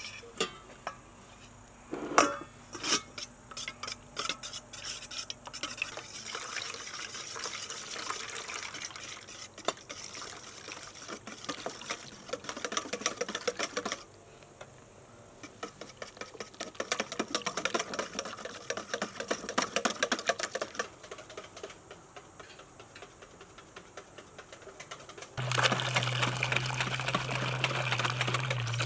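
Wire whisk beating eggs in a stainless steel bowl: rapid clinking strokes against the metal, stopping briefly about halfway. Near the end it gets louder as water is poured from a plastic jug into the batter while the whisking goes on.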